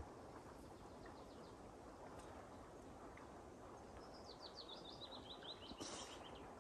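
Near silence broken by a faint songbird trill from about four seconds in: a rapid run of short chirps stepping down in pitch for a couple of seconds. A brief click right at the start.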